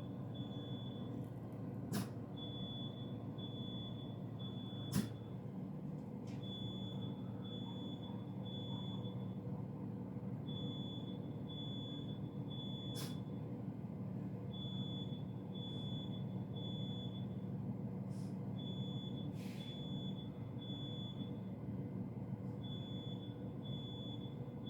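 Fire alarm sounding in the temporal-three evacuation pattern: groups of three high beeps, then a pause, repeating about every four seconds. A steady low hum lies beneath, and there are sharp clicks about two and five seconds in.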